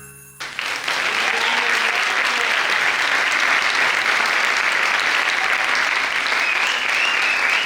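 Audience applauding, starting about half a second in as the last music notes die away, and holding steady.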